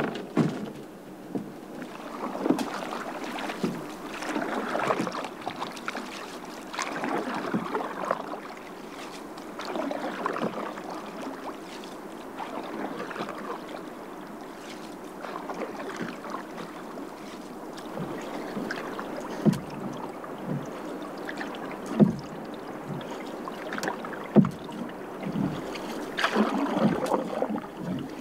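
Canoe paddling: water swishing and dripping off the paddle in a steady rhythm, a stroke every two to three seconds, with a few sharp knocks in the second half.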